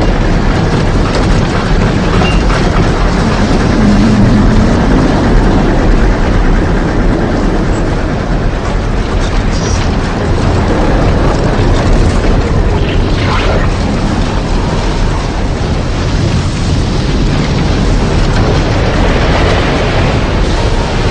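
Tornado sound effect: a loud, steady rush of wind with a heavy low rumble, like a passing freight train, holding without a break.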